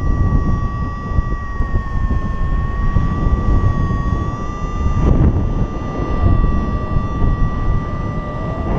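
Wind rushing over the camera microphone of a paraglider in flight, a steady buffeting rumble. A steady high whistle-like tone runs through it the whole time.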